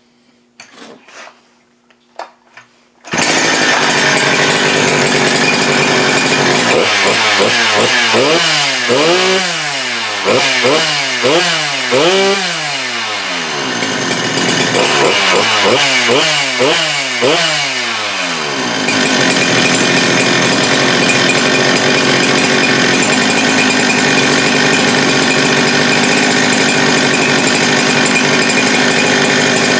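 Holzfforma G395 two-stroke chainsaw starts running loud about three seconds in. Its throttle is blipped about once a second in two runs of revs, then it runs steadily, with the carburettor's low-speed mixture being leaned out from a rich setting.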